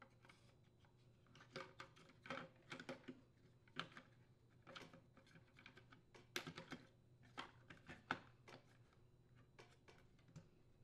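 Faint, irregular plastic clicks and taps of a Craftsman chainsaw's engine cover being fitted and pressed into place by hand on the housing.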